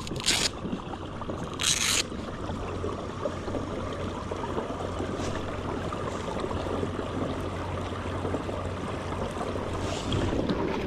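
Water lapping and sloshing, with a steady low hum underneath and two short hissing bursts in the first two seconds.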